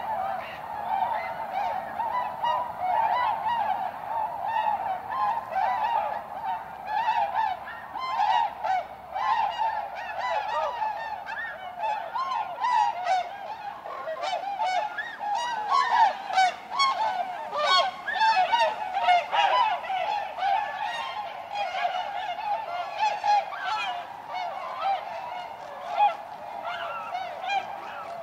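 A flock of waterfowl calling, with many short calls overlapping continuously, busiest and loudest in the middle.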